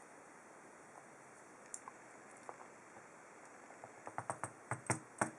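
Small metal parts of a padlock being handled during disassembly, clicking and tapping: a few scattered clicks, then a quick run of sharper clicks in the last second and a half.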